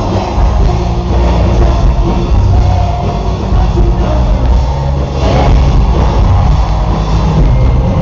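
Rock band playing live, loud and continuous, with drums and bass giving a heavy low end.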